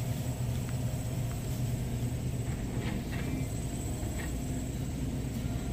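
Steady low background hum of store machinery, with a few faint clicks.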